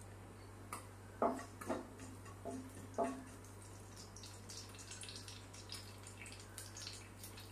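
Mustard seeds starting to pop in hot coconut oil in a nonstick pan: scattered sharp little crackles that come more often in the second half. A few dull knocks of a spatula against the pan come one to three seconds in. The popping shows the oil is hot enough for the tempering.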